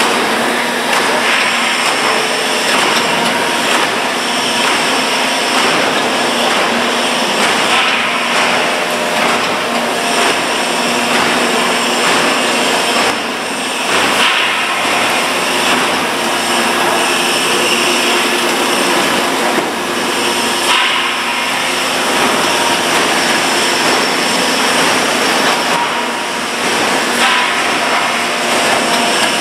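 Vacuum forming production line running: a loud, steady machine noise from the forming machine and its electric-motor hydraulic pump units, with faint steady hum tones.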